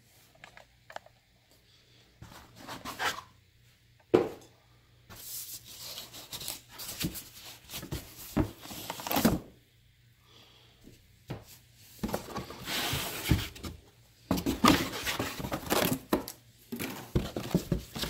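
Cardboard box and plastic-wrapped speaker being handled: irregular rustling and scraping of packaging as the speaker is lifted out of its cardboard box and pulp insert, with a sharp knock about four seconds in and denser rustling in the second half.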